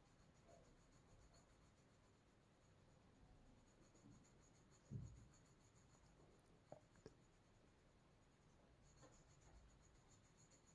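Faint scratching of a coloured pencil shading on paper, with one soft thump about halfway through and two light clicks shortly after.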